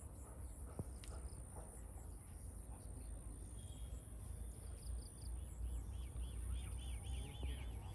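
Rural outdoor ambience: a steady high-pitched insect drone over a low rumble, with a bird calling in quick repeated chirps from about halfway on.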